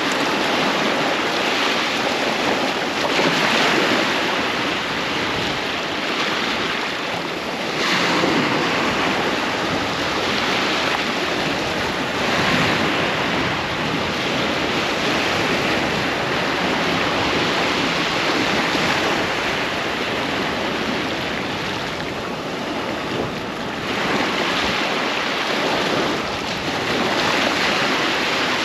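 Ocean waves breaking and washing up a sandy beach, in rolling surges every few seconds over a steady surf hiss, with some wind on the microphone.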